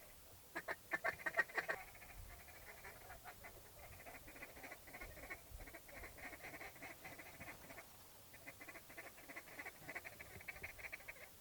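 A large flock of wigeon calling, a steady, dense chatter of many high whistles, louder for a moment about a second in.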